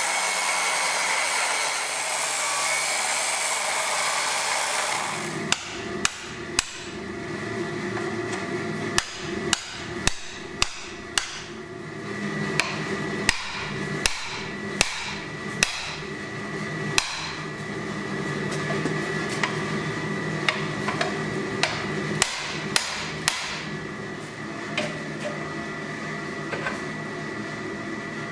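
Hammer blows on steel at the anvil while forging: sharp single strikes at uneven spacing, over a steady hum. For the first five seconds a loud, even rushing noise is heard before the strikes begin.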